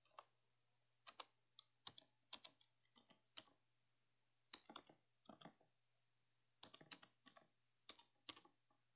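Faint keystrokes on a computer keyboard, typed in short irregular runs with pauses between them.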